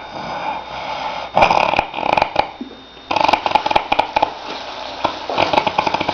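A man snoring heavily: three long, rattling snores about two seconds apart, like a tractor.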